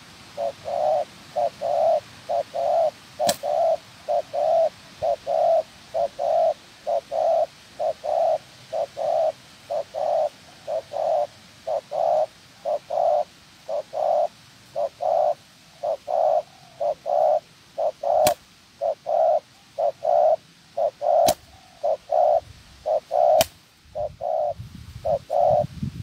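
Spotted dove cooing in a long, even run of short low coos, about two a second, with a few sharp clicks in between.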